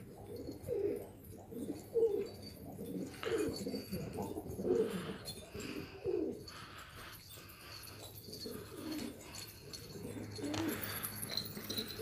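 Several domestic pigeons cooing: repeated low, rolling coos that overlap and follow one another throughout.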